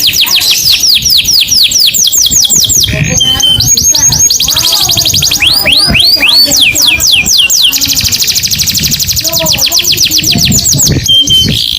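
Canary singing: fast trills of repeated sweeping high notes, each run switching to a new trill type every second or two, with a short steady whistled note twice.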